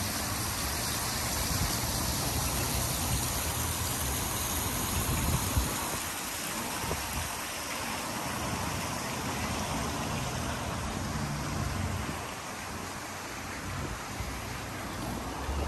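Steady splashing of a sheet of water falling from a stacked-stone water wall into a pool, with an uneven low rumble underneath.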